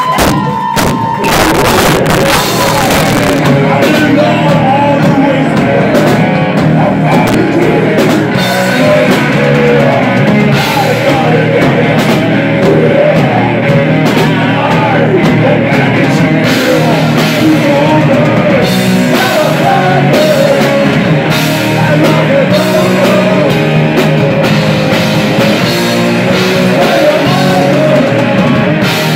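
Rock band playing live and loud: electric guitars, bass and a drum kit, with the full band coming in about a second in.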